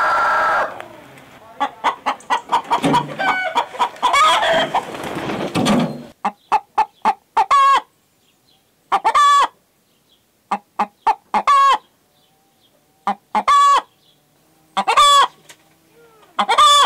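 A rooster's crow ends about a second in, followed by chicken clucking. Then a hen cackles in repeated rounds: a few short clucks, each round closing on a longer drawn-out call, the pattern of a hen's egg-laying cackle.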